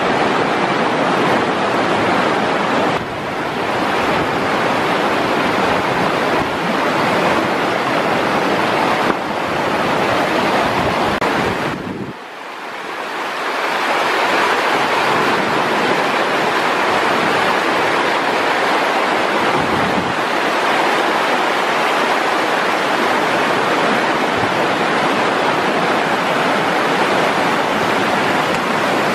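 River rapids rushing and splashing over rocks, a steady loud rush that dips briefly about twelve seconds in.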